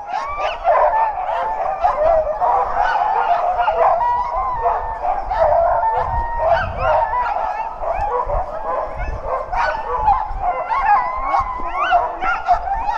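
A team of sled dogs yelping, howling and barking together in a continuous chorus, many voices overlapping. It is the excited clamour of sled dogs while the team is being hooked up before a run.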